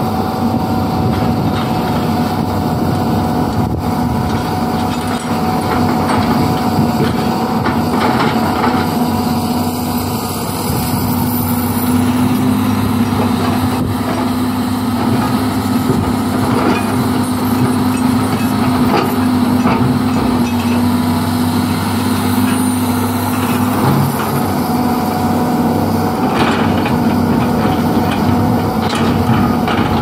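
Large Doosan tracked excavators' diesel engines running steadily under working load, with occasional knocks and scrapes of rock against the bucket.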